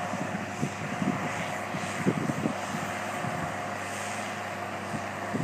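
Tractor engine running steadily under load as it pulls a drill, a constant drone with a held whine, with irregular low rumbles coming and going.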